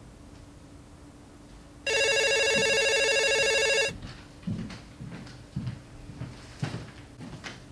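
Landline telephone ringing once for about two seconds with a trilling electronic ring, followed by a few soft footsteps as someone walks toward it.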